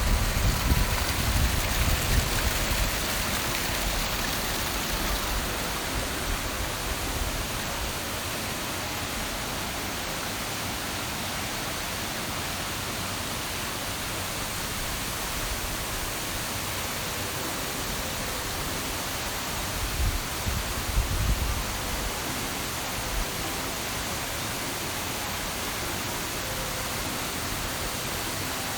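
Steady rushing of falling water from a waterfall or gorge cascade, an even wash of noise, with bursts of low rumble in the first few seconds and again about two-thirds of the way through.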